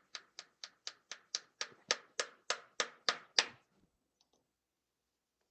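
Claw hammer tapping a small tack nail through fabric into a wooden stretcher frame: about fourteen quick, light strikes, about four a second, growing louder, then stopping about three and a half seconds in.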